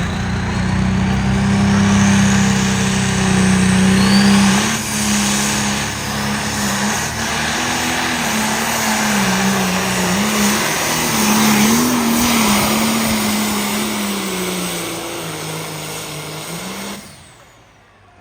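Pulling vehicle's engine running at full throttle under load during a pull, loud, its pitch wavering up and down as it fights the sled, then dying away near the end.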